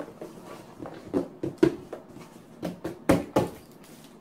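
A long cardboard box being shaken and slapped by hand to free something stuck inside it: a string of irregular knocks and thuds, the loudest about one and a half and three seconds in.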